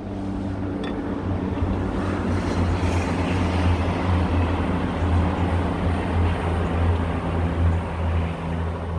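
Vegetable fritter batter sizzling in hot oil in a grill pan: a loud, steady hiss that builds as the spoonfuls go in, over a low steady hum.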